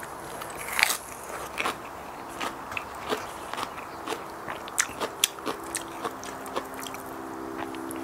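Close-up crunching as crisp frisée lettuce is bitten and chewed, a run of sharp crackling clicks with the loudest about a second in. A low steady hum joins about halfway through.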